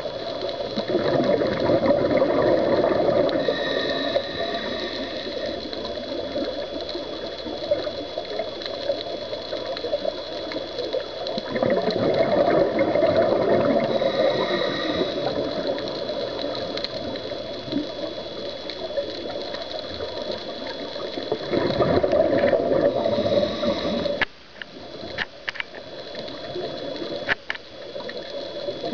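Muffled underwater water noise heard through a camera's waterproof housing, a low rushing that swells and fades every several seconds. A faint steady high whine runs under it. Near the end the rushing drops away and a few sharp clicks sound.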